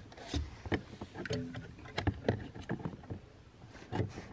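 Scattered, irregular clicks and knocks of hands working the climate-control lever on the heater box loose.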